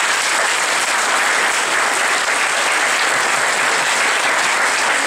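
A full hall audience applauding steadily, dense clapping from many hands, answering the cue for applause.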